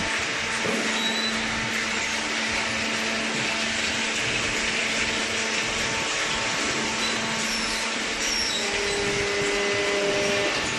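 Hydraulic cardboard baler running: a steady mechanical whir with a faint hum in it, and a brief higher tone near the end.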